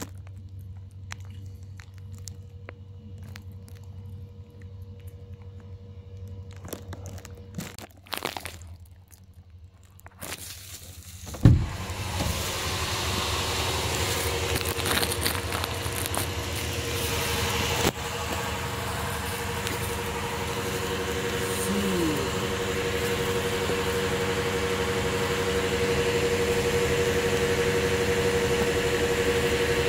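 Fuel-station pump refuelling a car: handling clicks over a low hum, then about a third of the way in a loud clunk as the pump starts. After that, fuel flows steadily through the nozzle into the car's filler neck over the pump motor's steady hum, slowly getting louder as the tank fills.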